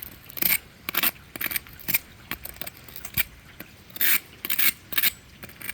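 Steel hook of a painter's multi-tool scraping and raking weeds out of the joint between cement blocks and a patio, in a series of short, quick strokes with a pause in the middle.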